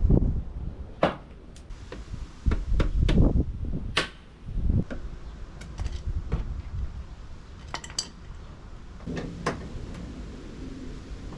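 Hand tools clinking and knocking against metal, with scattered sharp clicks and thuds, as the 10 mm bolts holding the hood latch cable are worked off.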